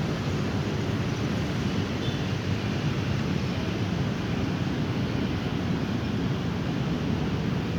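A steady, low, even rush of noise with no distinct events.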